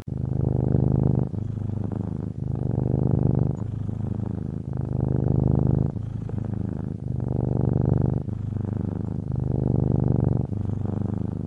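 Cat purring steadily, alternating evenly between louder and softer stretches, one full cycle about every two seconds.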